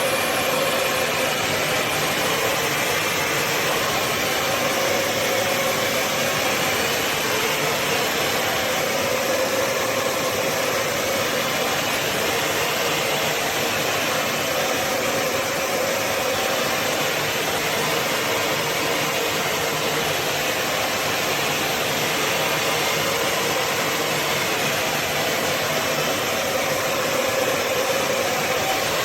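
Bissell CrossWave HydroSteam Pet wet-dry floor cleaner running steadily: an even motor whir with a faint constant hum.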